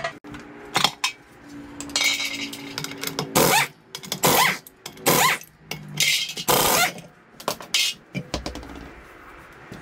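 Metal hubcap clicking as it is pried off, then an air impact wrench running the lug bolts off a 1973 VW Beetle's front wheel in about six short, loud bursts. Quieter scraping near the end as the wheel is pulled off the hub.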